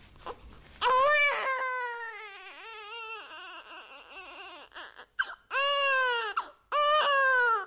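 Newborn baby crying: a long cry about a second in that falls in pitch and trails off into weaker whimpers, then two more short cries near the end.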